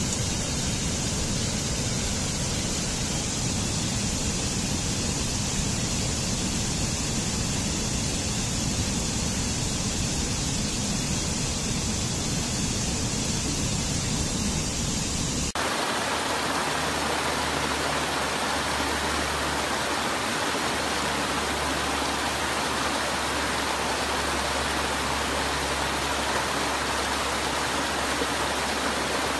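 Waterfall rushing with a steady, even roar of falling water. About fifteen seconds in, the sound switches abruptly to a brighter, hissier rush with less deep rumble.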